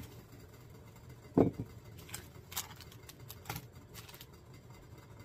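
Small handling sounds on a wooden tabletop as a coffee mug and a foil instant-coffee sachet are moved. A single knock comes about a second and a half in, then a few soft crinkles and rustles of the sachet.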